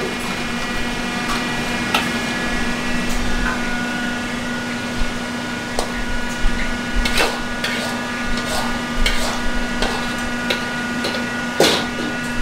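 Steady hum of commercial kitchen machinery, with scattered knocks and clinks of utensils and dishes, the sharpest about a second before the end.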